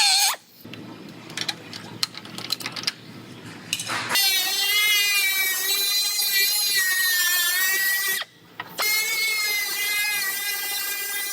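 About 4 s of handling clicks and knocks, then a high-speed cutting tool whining under load on sheet metal. Its pitch wavers as it cuts the replacement B-pillar section's seams to size. The whine stops for about half a second near the 8 s mark, then picks up again.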